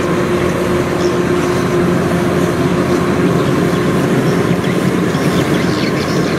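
Kubota DC-93 combine harvester's diesel engine and threshing drum running steadily while it cuts and threshes rice: a loud, even drone with a constant hum.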